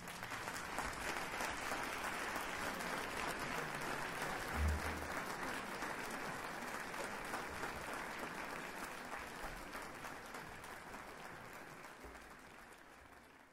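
Audience applauding, the applause slowly fading out, with a single low thump about five seconds in.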